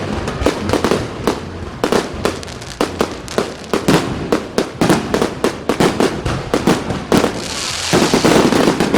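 Fireworks going off in a rapid, irregular run of sharp bangs, several a second, with a dense stretch of crackling hiss starting about seven seconds in.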